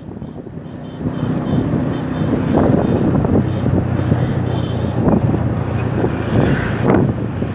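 Vehicle engine running steadily with a low hum, heard from a moving vehicle along with wind noise on the microphone.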